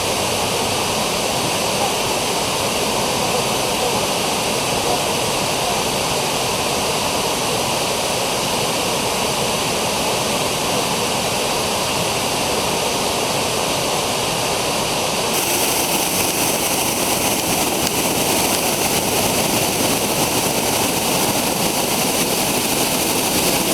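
Dzhurin waterfall pouring: a loud, steady rush of falling water that turns brighter and a little louder about two-thirds of the way through.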